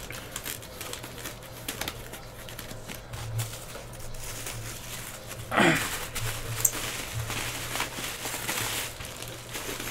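Plastic card-pack wrapper and bubble wrap rustling and crinkling under the hands in many small crackles, over a low steady hum. About halfway through comes a short voice sound that falls in pitch.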